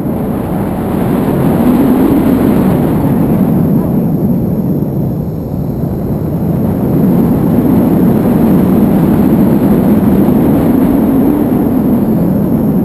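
Loud, steady wind noise from the airflow of a paraglider in flight buffeting the camera microphone, swelling and easing a little now and then.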